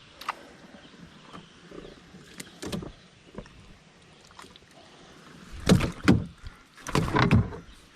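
Handling noise in a small one-man fishing boat: a few faint clicks, then three loud bursts of knocking and rustling close together near the end.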